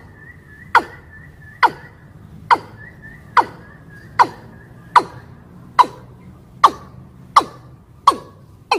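Female watercock (ayam-ayaman) calling, the hunting-lure call of a hen in breeding condition that draws in males. It gives a sharp note that drops steeply in pitch, repeated evenly a little more than once a second. A faint series of high short notes runs behind it through the first half.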